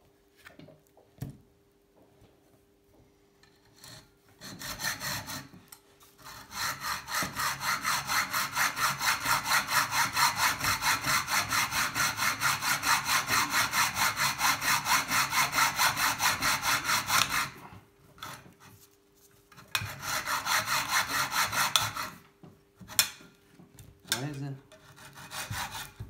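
Hacksaw cutting through a bicycle seat post clamped in a vise. It starts with a few short strokes, saws in a long run of even, rapid strokes, pauses, and then saws briefly again. A few sharp knocks and clicks follow near the end.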